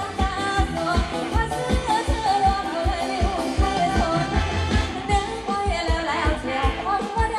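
Live band playing a Thai ramwong dance song: a singer's melody over a fast, steady drum beat.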